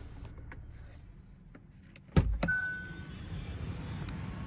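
Hyundai Tucson's bonnet release pulled from inside: a few light clicks, then the bonnet latch pops with a sudden thud about two seconds in. It is followed by a second click and a short steady beep.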